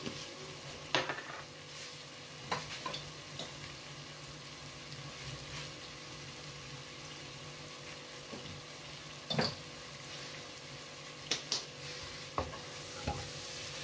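Chicken pieces and onion frying in a non-stick pan with a steady low sizzle, while a wooden spatula stirs them, knocking and scraping against the pan a few times, most around 9 s and from 11 to 13 s in.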